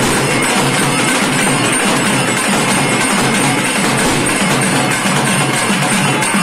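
Loud, continuous festival music driven by drums, with a fast, steady beat, accompanying a Karuppasamy deity-possession dance.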